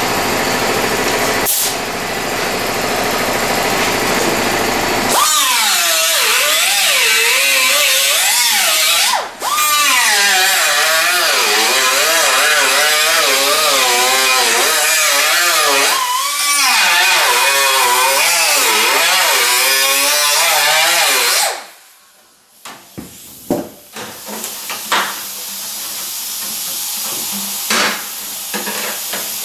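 Small air-powered cut-off wheel grinding through the spot welds of a door skin's sheet-metal flange. Its pitch wavers up and down as the disc bogs into the metal and frees up again, with a brief break about nine seconds in. It stops about twenty-one seconds in, and a few light metal knocks and clatters follow over a faint hiss.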